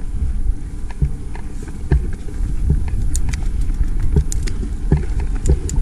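Mountain bike rolling along a dirt singletrack: a constant low rumble of tyres on dirt, with irregular sharp clicks and knocks as the bike rattles over bumps.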